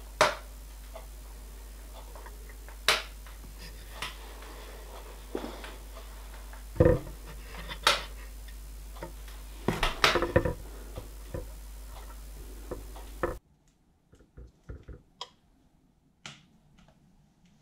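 Small metal parts clicking and tapping together and against the hotplate surface as a cast-iron axle box cover is handled and pressed onto its axle box. Near the end come a few fainter clicks from the hotplate's rotary control knob being turned.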